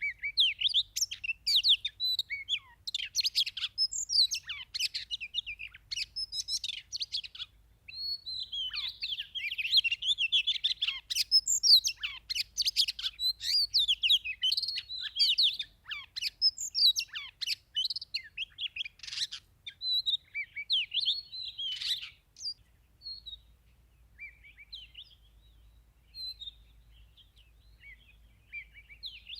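Oriental magpie-robin singing a rich, varied run of whistled phrases, dense for about the first twenty seconds, then only scattered short notes.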